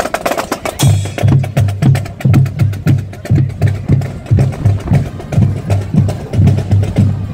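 Marching band drum corps playing a march cadence on snare and bass drums: quick, sharp snare strokes over a steady bass drum beat about twice a second.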